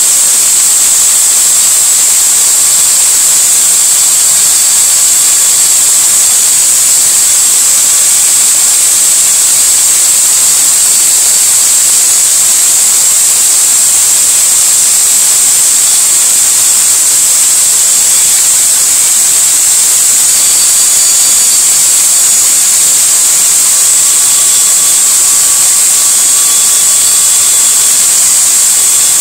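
Corded electric drill running steadily at speed, spinning an engine valve chucked in it while carbon deposits are scraped off the valve by hand: a continuous high-pitched, hiss-like whine.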